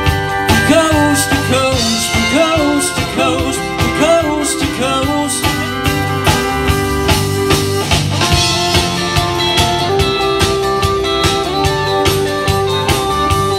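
Live country band playing an instrumental break: a fiddle lead with sliding, wavering notes over electric guitars, bass guitar and a steady drum beat.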